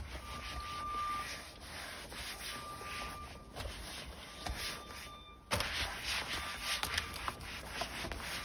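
Cloth rubbed back and forth over leather car seats as they are cleaned: a run of scrubbing strokes that gets louder about five and a half seconds in.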